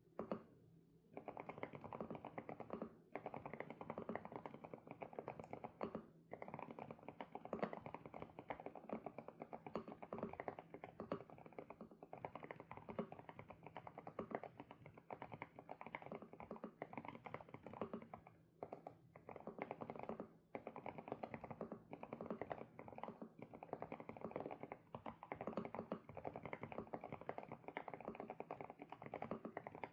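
Fast, continuous typing on an SPM PL108W full-size mechanical keyboard with Sunset switches: a dense run of keystroke clacks, broken by short pauses every few seconds.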